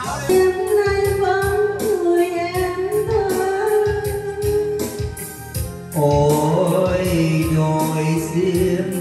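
Karaoke music: a Vietnamese pop-ballad backing track with a steady beat and a held lead melody line, played through a home karaoke system. The lower accompaniment grows fuller about six seconds in.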